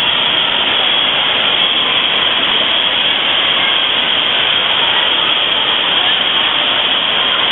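Steady loud rush of water in an indoor water park's lazy river, with echoing crowd voices mixed into the din.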